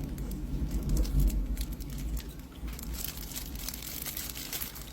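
Packaging wrap around a potted plant crinkling and rustling as it is pulled off by hand, with many sharp crackles, densest in the second half. Low bumps of handling underneath, heaviest in the first two seconds.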